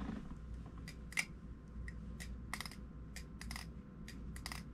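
HOM Ti Basilisk titanium balisong being flipped: a scattering of light, irregularly spaced metallic clicks from the handles swinging and meeting, the sharpest about a second in. A quiet flipper.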